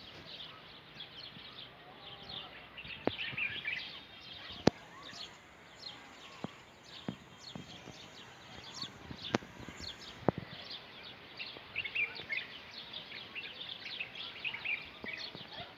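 Many small birds chirping and twittering in a busy, continuous chorus, with a handful of sharp single knocks scattered through it.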